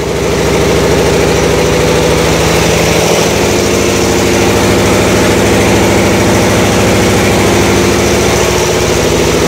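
Reciprocating refrigeration compressor machinery running steadily, a loud even machine sound with a fast, regular pulse.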